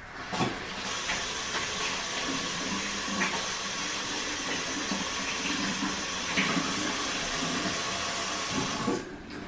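Kitchen sink tap running as hands are washed under it: a steady rush of water that comes on about a second in and shuts off near the end.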